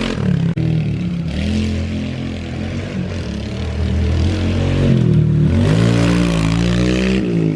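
Small engine running continuously, its speed dropping about five seconds in and then rising again.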